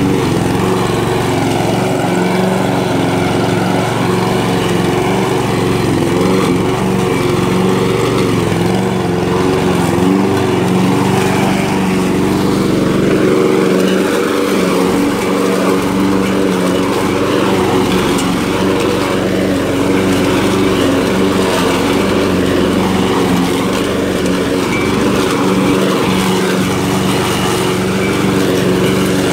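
Walk-behind rotary lawn mower's engine running steadily as it cuts grass along a path edge, with an even, unbroken drone.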